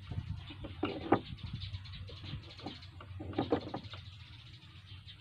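Small blue plastic trigger-mechanism parts handled and fitted together on a wooden table: scattered light clicks and taps, the sharpest about a second in and a small cluster of taps about three and a half seconds in.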